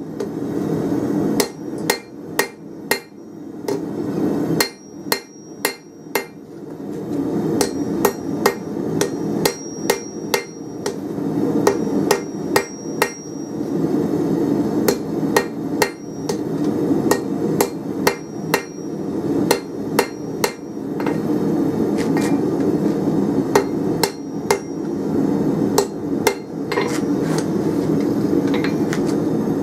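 Hand hammer striking a red-hot 24mm round steel bar on an anvil, forging its pointed end, in runs of blows about two a second with short pauses. Some blows leave a brief high ring, over a steady low hum.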